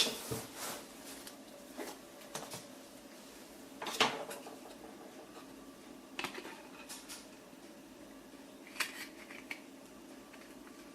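A hard 3D-printed plastic iPhone cover being handled and worked onto the phone: scattered faint clicks, taps and scrapes of plastic on plastic. The loudest come right at the start and about four seconds in.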